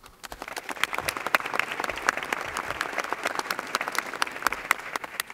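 Applause from a chamber of seated legislators: many people clapping at once, building up over the first second and dying away near the end.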